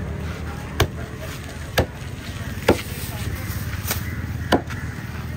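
Knife chopping through fish, five sharp strokes about a second apart, over a steady low hum.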